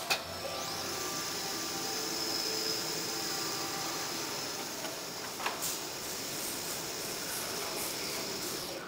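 JY-1525/2025 cam automatic lathe running and cutting a small turned part: a steady mechanical whir with a hiss. Sharp clicks at the start and again about five and a half seconds in.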